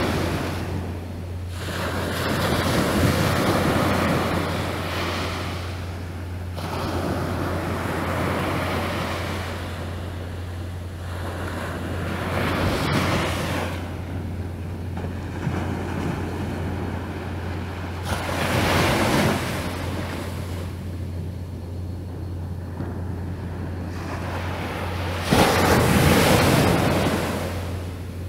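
Sea waves washing against the shore, the rush swelling and dying away every few seconds, with wind on the microphone and a steady low hum underneath.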